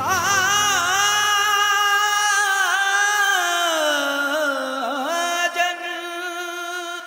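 A singer's voice holding one long, wavering note with ornamental bends, the closing note of a song. The low accompaniment drops away about a second in, and the note fades near the end.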